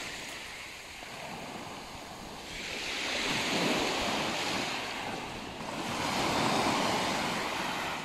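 Small sea waves breaking and washing up a pebble beach, the surf swelling twice, about three seconds in and again about six seconds in, and ebbing between.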